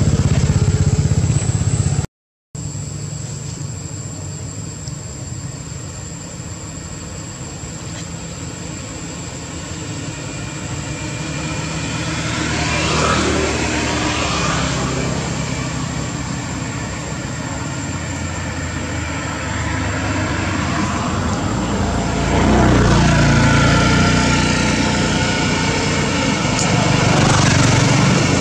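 Engine noise of passing motor vehicles: a steady hum that swells about halfway through and again near the end, with a steady high whine over it and a brief dropout near the start.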